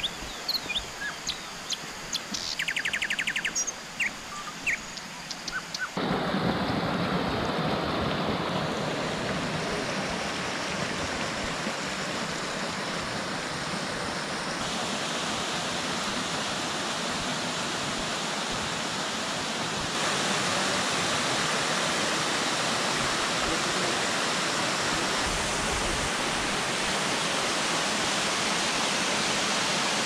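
Forest birds chirping, with one quick trill, for the first few seconds. Then the steady rushing of a waterfall spilling over rock into a shallow pool, a little louder about twenty seconds in.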